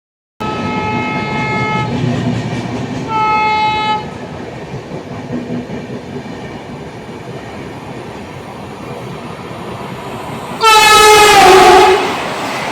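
A high-speed express train sounding its multi-tone horn while running through at full speed: a blast of about a second and a half, then a shorter, louder one, over the steady rumble of the train. About ten and a half seconds in comes a very loud horn blast that drops in pitch as the train passes, followed by the rush of the train going by.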